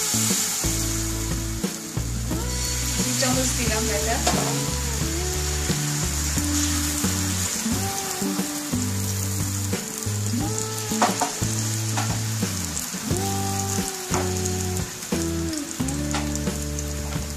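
Thin flour-and-egg batter sizzling steadily in hot oil in a nonstick frying pan as it is spread out with a ladle. Sustained low background music notes run underneath.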